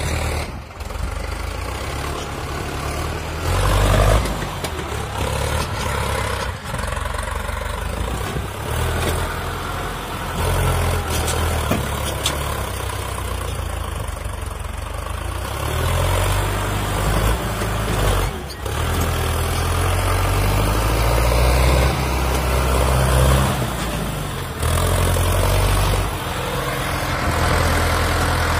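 Sonalika DI 750 III tractor's diesel engine labouring under heavy load as it hauls a loaded trolley through soft sand, its level rising and falling. The sound breaks off sharply twice, about half a second in and around eighteen seconds.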